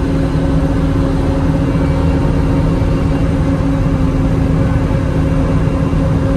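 Bobcat T650 skid steer's diesel engine running steadily while powering a Bobcat Brushcat 72-inch rotary cutter, with an even hum.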